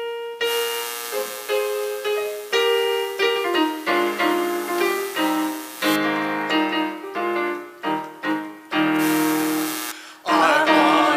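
Piano playing a hymn tune, a run of separate struck notes and chords. Voices come in singing near the end.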